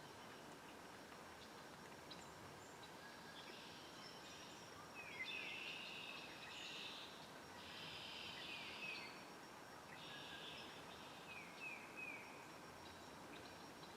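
Songbirds singing faintly: several short phrases of high chirps, some ending in quick downward slurs, starting a few seconds in, over a steady outdoor hiss.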